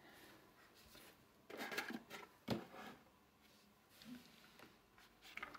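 Faint handling of an opened board-game box and its plastic insert: a few short rustles and scrapes, with one sharp tap about two and a half seconds in.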